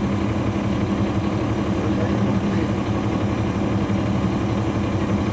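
Caterpillar C13 ACERT inline-six diesel engine of a NABI transit bus running steadily, heard from inside the bus, with an even hum that neither rises nor falls.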